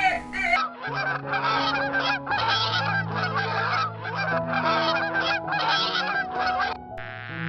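A flock of farm waterfowl calling in a dense clamour, coming in repeated bursts, over background music with long held low notes.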